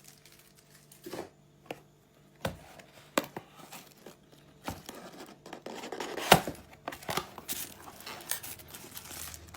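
Packaging being opened by hand: scattered rustling and crinkling with irregular clicks and knocks, the sharpest about six seconds in.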